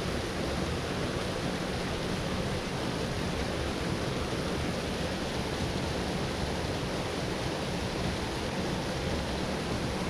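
Steady rush of water pouring down a small spillway, an even unbroken noise.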